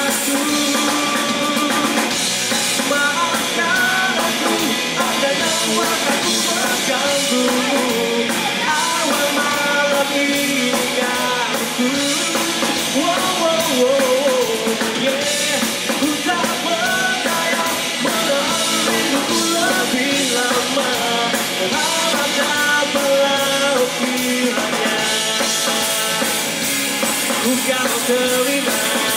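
Rock band playing a song: a man singing the lead over electric guitar, bass guitar and a drum kit.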